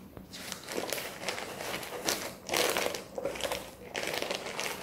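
Crinkling and rustling of packaging as a packet of paper serviettes is handled and pushed into a kit bag among plastic-wrapped items. The rustling comes unevenly and is loudest a little past halfway.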